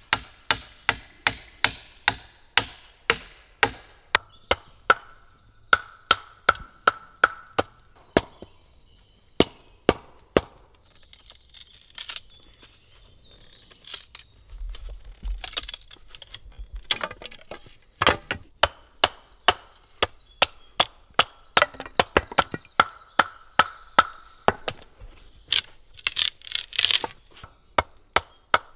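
Billhook chopping wood: a steady run of sharp chops, about two a second, with a short pause about halfway through.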